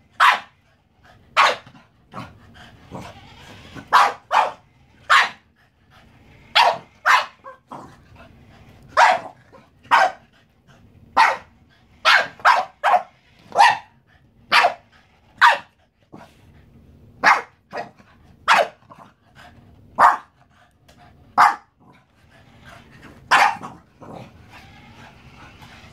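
A small black-and-white dog barks over and over at a remote-control toy car. The barks are short and sharp, come at irregular intervals and are often in quick pairs.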